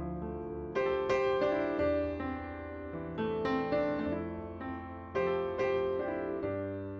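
Background piano music: gentle chords and melody notes, each struck and left to fade, with a steady low bass underneath.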